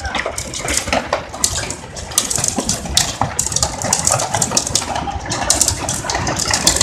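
Heavy rain, with dense, irregular sharp drop impacts and splashes over a steady low rumble of running water.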